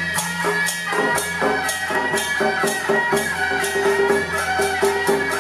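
Taiwanese temple-procession music: a held, wavering melody over a fast, steady beat of percussion strikes.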